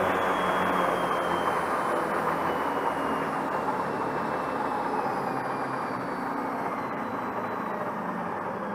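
QuietDrive QD330 electric marine propulsion motor running on its test rig, having been taken to its top speed of 3,700 RPM: a steady running noise with a thin whine that falls in pitch as the level slowly drops, the motor slowing down.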